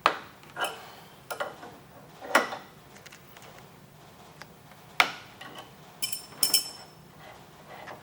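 A wrench clinking and knocking against a steel crank arm removal tool as the tool is tightened down in an exercise bike's crank arm. There are about seven sharp, irregular metal strikes, two close together about six seconds in ringing brightly.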